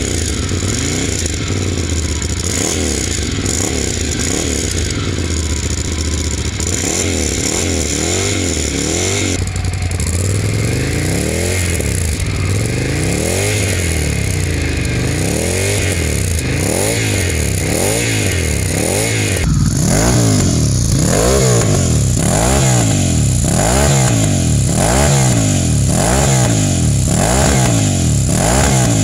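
Ducati Scrambler 800's air-cooled L-twin running through a GPR Furore Nero silencer, revved over and over with throttle blips: the pitch climbs and drops again about once a second. About two-thirds of the way through the revs turn louder and sharper.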